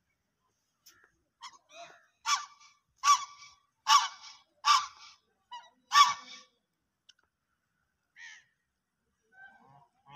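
Domestic geese honking: a run of five loud, short calls about a second apart in the middle, with fainter calls before and after.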